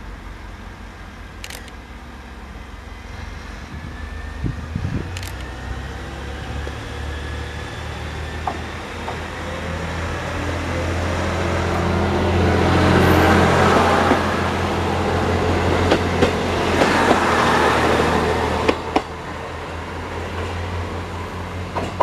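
KiHa E130 series diesel railcar pulling away from a station: its diesel engine drones and climbs in pitch as it accelerates, growing loud as the cars pass close by. A few sharp clacks come as it passes, and the sound drops away near the end.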